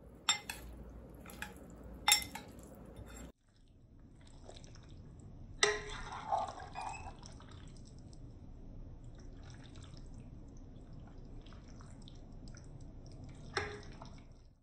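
Metal spoon mixing chopped avocado, tomato, onion and coriander in a bowl: soft wet squelching and stirring, with a few sharp clinks of the spoon against the bowl.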